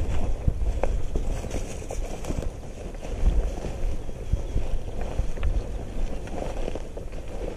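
Wind buffeting the microphone with a low, uneven rumble, over irregular rustling and crunching of footsteps through dry grass.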